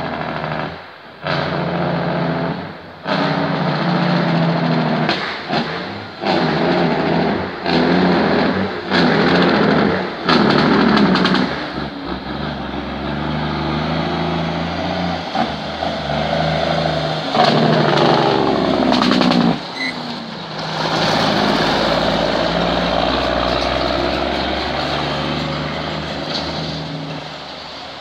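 Heavy truck's diesel engine running loud. Through the first half it keeps cutting out and coming back every second or two, then it runs more steadily.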